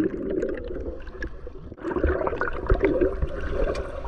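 Swimming-pool water heard from under the surface: muffled bubbling and churning, with scattered small clicks. It dips briefly just under two seconds in, then churns on.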